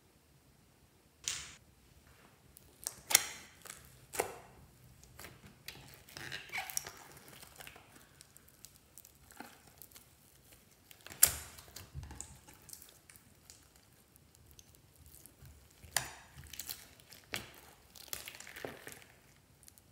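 Slime being squished and kneaded by hand in a glass bowl: irregular wet clicks, pops and crackles as it is pressed and pulled, with two sharper pops about 3 and 11 seconds in.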